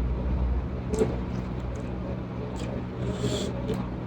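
A person eating, with a sharp click about a second in and a short hiss a little after three seconds, over a steady low hum.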